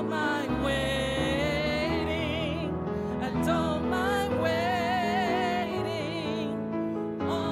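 Church worship team singing a worship song over instrumental backing, with a lead female voice holding long notes with vibrato.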